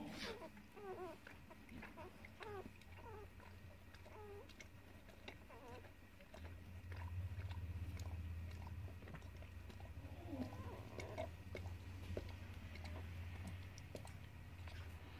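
Soft high squeaks from a young animal, thickest in the first few seconds, over small wet clicks of a dog licking and nibbling at it.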